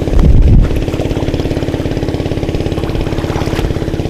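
A small engine running steadily at an even speed, with a brief louder low rumble just after the start.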